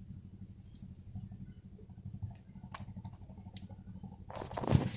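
Hands working over wet mud and dry grass stalks: scattered soft clicks and crackles over a low steady rumble, with a louder rustle near the end.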